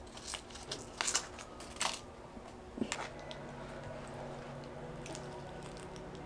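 Close-miked eating sounds: a seasoning packet shaken over fried pizza gives a cluster of sharp crackles and rustles in the first two seconds, with a soft thump just before three seconds in as the slice is handled. Then a soft bite and quiet chewing of the fried pizza over a faint low hum.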